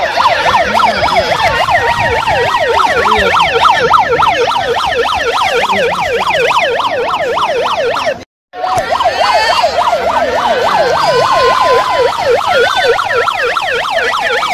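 Electronic siren in a fast yelp: rapid rising-and-falling sweeps, several a second. It cuts out briefly a little after eight seconds, then resumes.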